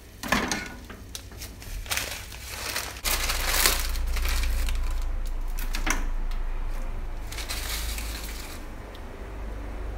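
Dry corn vermicelli cakes crackling and crunching as they are handled and pushed into a pot of boiling water, with many sharp crackles. A steady low rumble sets in about three seconds in.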